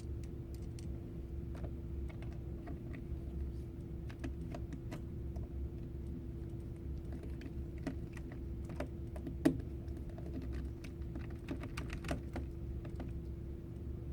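Light scattered clicks and taps of small tools and fingers on a Chromebook's plastic screen bezel and its screws, with one sharper click about halfway through, over a steady low hum.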